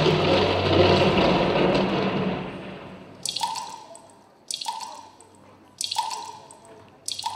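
Rain and water-drop sound effects opening a dance soundtrack. A rush of rain-like noise fades away over the first three seconds, then single drops plink about once every second and a quarter, four times.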